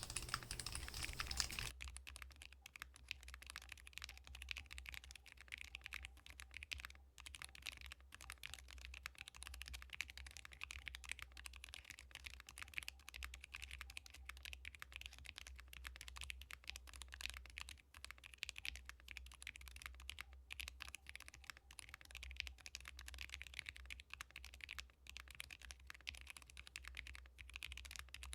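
Continuous typing on a gasket-mounted Neo Ergo mechanical keyboard with stock Akko Bittersweet tactile switches, a PP plate and EPBT keycaps: a dense run of key clicks. The typing is louder for the first couple of seconds, then goes on more softly over a faint low hum.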